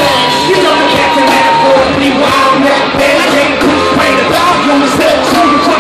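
Loud live concert music over a stadium sound system: a rock-style track with a steady drum beat. A long held high note ends about two seconds in, and shorter notes follow.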